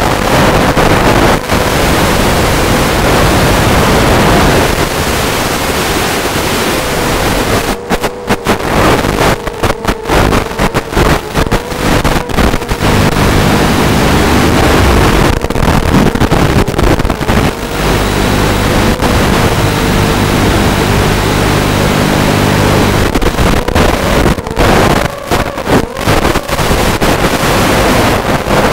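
Loud steady hiss and buzz on the audio track of an analog FPV video link recorded by the goggles' DVR, with a faint wavering tone. It drops out in brief gaps several times, clustered a third of the way in and again near the end.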